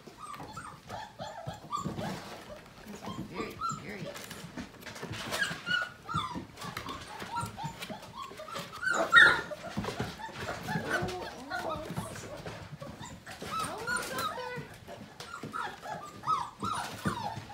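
A litter of five-week-old Portuguese Water Dog puppies yipping, whining and giving small barks as they play, with clicks of claws on a hard plastic toy. The loudest, sharpest yelp comes about nine seconds in.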